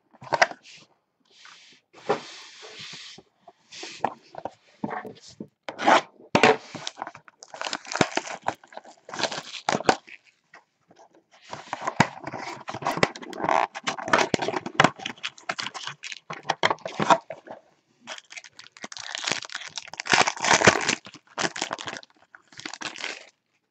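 Hands tearing open and handling a small cardboard trading-card box and its packaging: tearing, scraping and crinkling noises in irregular bursts with short pauses between them.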